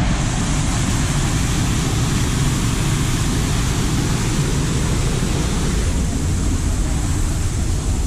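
Steady rushing of water from a waterfall, a loud, even noise without breaks.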